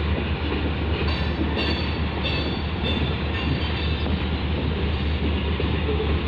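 Freight train of tank cars rolling past: a steady rumble of wheels on rail, with brief high squeals from the wheels several times in the first half.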